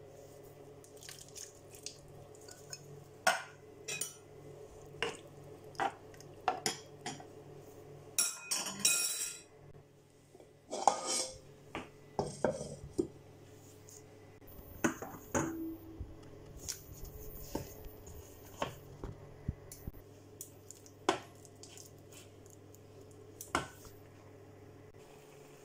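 Cookware being handled on a hob: a run of irregular taps, clinks and knocks of a can, a glass bowl, pans and spoons, with two longer clattering, scraping stretches about eight and eleven seconds in. A faint low steady hum runs underneath.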